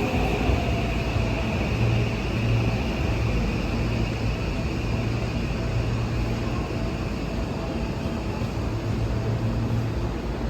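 Steady rumble of a train running, with a low hum underneath, easing off slightly towards the end.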